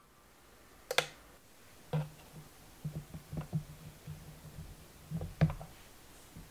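Plastic clicks and knocks from handling an electric donut maker as its lid is opened: one sharp, loud click about a second in, then scattered lighter taps and dull knocks.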